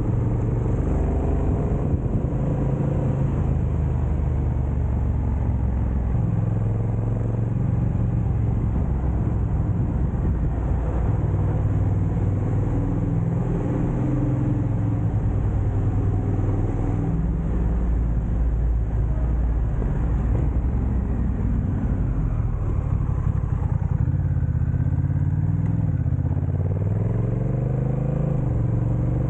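Motorcycle engine running under way, its note stepping up and down with the throttle and climbing near the end.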